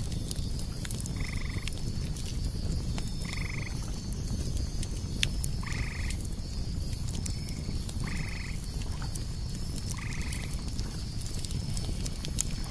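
A frog calling in the marsh: five short croaks about two seconds apart, over steady low background noise.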